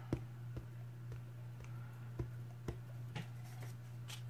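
Faint, evenly spaced light taps or ticks, about two a second, over a steady low electrical hum.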